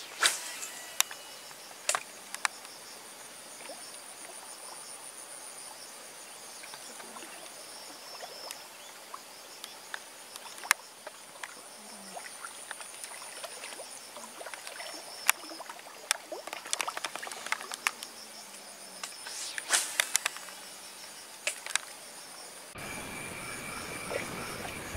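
Insects chirping in a steady high-pitched pulsing drone, with frogs calling faintly and scattered sharp clicks and ticks. Near the end a louder hiss with a steady tone comes in.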